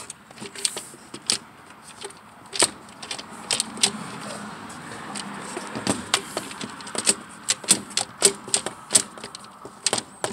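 Irregular clicks and knocks of the Stihl MS 170 chainsaw's hard plastic housing and handle being gripped, shifted and knocked against a table.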